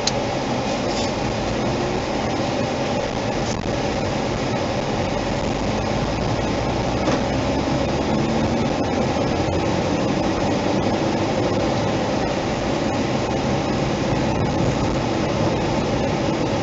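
Steady road and engine noise of a car driving, heard from inside the car, with an even hum and no change in pace.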